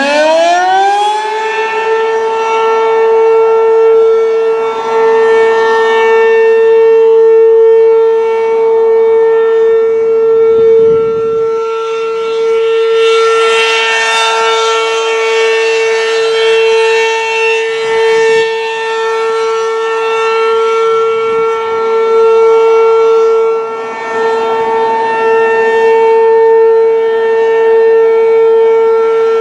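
Werden P-127 outdoor warning siren sounding on a test: it finishes winding up to pitch in the first second or two, then holds one steady high tone, its loudness swelling and dipping now and then.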